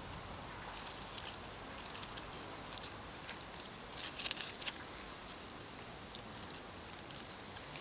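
Faint rustling and light crackling of vine leaves and grape bunches being handled, with a short busier patch of crackles about four seconds in.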